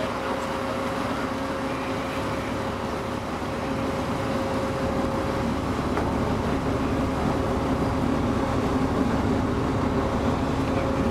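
Heavy lifting machinery running steadily: a low hum with a thinner steady whine above it, growing somewhat louder about four seconds in as the crane hoists a rail car off a cargo ship.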